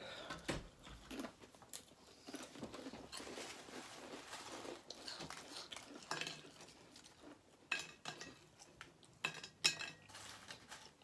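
Crisp chips being handled and picked out of a glass baking dish: quiet rustling and light clicks of chips against the glass, with a few sharper clinks about eight and nine and a half seconds in.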